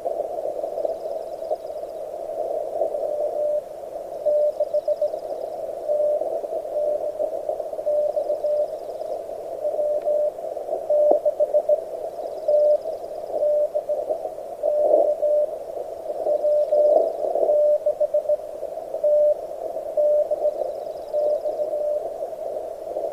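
Ham radio transceiver sounding Morse code (CW): a steady mid-pitched tone keyed on and off in dots and dashes over static hiss squeezed into a narrow band by the radio's CW filter.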